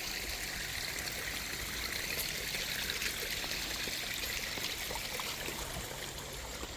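A small mountain stream running over rocks: a steady, even rush of water with a trickling texture.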